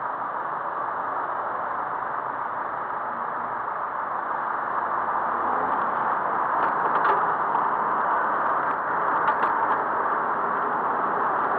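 Steady road and traffic noise heard while riding a bicycle, swelling a little about halfway through, with a few light rattles or clicks in the second half.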